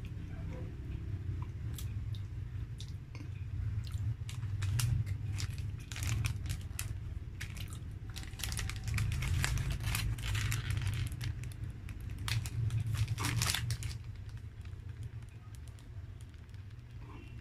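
Shiny plastic wrappers of Fudgee Barr cake bars crinkling as they are handled, a string of sharp crackles that is busiest in the middle and thins out near the end, over a steady low hum.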